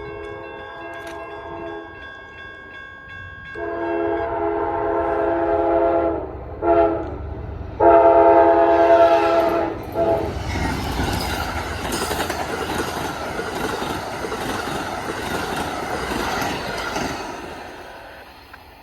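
A train horn sounds for a road crossing: a quieter held note, then a long blast, a short one and another long blast. The train then passes with a rumble and the clickety-clack of wheels on the rail joints, which fades near the end.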